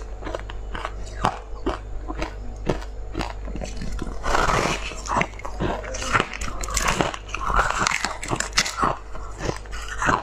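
Biting and chewing a block of frozen purple crushed ice, close to the microphone. Crisp crunches come two or three a second, then a denser, louder run of crunching from about four seconds in.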